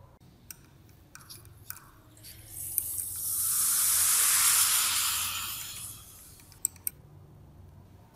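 Fizzing hiss from a reacting liquid in a glass beaker, swelling for about three seconds and then fading, with a few small clicks before and after it.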